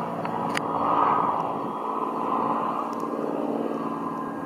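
Piper PA-46 Malibu's turbocharged six-cylinder piston engine and propeller droning at takeoff power as the plane climbs out after lift-off. The drone swells about a second in, then eases slightly. There is a brief click about half a second in.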